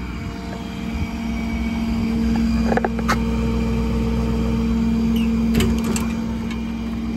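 Ford F550's 6.7 Power Stroke diesel running steadily at idle, with a steady hum over the low engine drone. A few light clicks and knocks come about three seconds in and again near six seconds.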